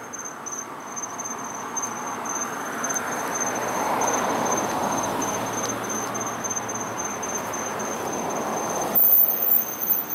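Crickets chirping in a steady high-pitched trill. A broad rushing noise swells and fades about four seconds in and again near the end, with a few knocks.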